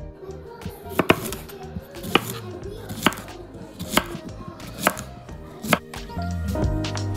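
Kitchen knife slicing a cucumber on a cutting board: sharp chops about once a second, starting about a second in.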